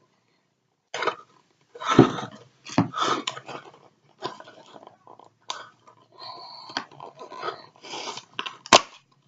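Plastic packaging crinkling and rustling in irregular bursts as it is handled, with a sharp click near the end.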